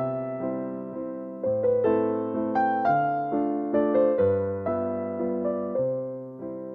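Background piano music: a slow melody over chords that change about every second and a half, each with a low bass note, the notes fading after each strike.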